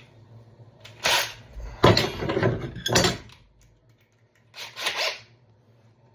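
Handling noises from work on a wooden door and its latch hardware: a short scrape about a second in, a longer run of scraping and knocking around two to three seconds, and a brief double scrape near five seconds.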